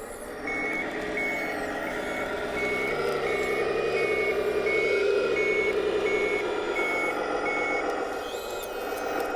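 The RC wheel loader's electronic sound module, played through its small speaker, sounding a simulated reversing alarm: evenly spaced high beeps, about one and a half a second, that stop about eight seconds in. Under them runs the module's simulated diesel engine sound, rising and falling in pitch as the loader is driven.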